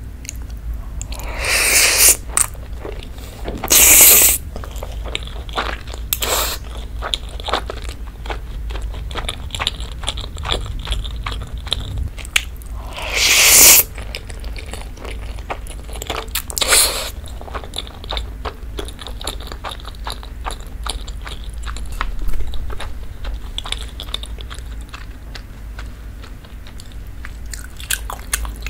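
Close-miked mukbang eating sounds: wet chewing of spaghetti in rose cream sauce and beef steak, with a handful of loud noodle slurps, the longest about halfway through.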